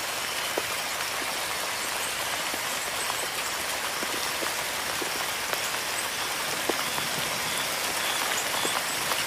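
Steady rain falling: a dense, even hiss with many scattered separate drips.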